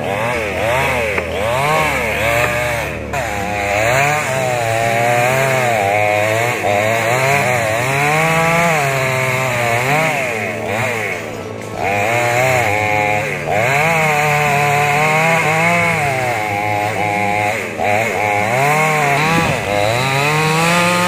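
Two-stroke chainsaw cutting into a tree trunk, its engine pitch rising and falling over and over as it revs up and bogs down in the cut. It eases off briefly a few times.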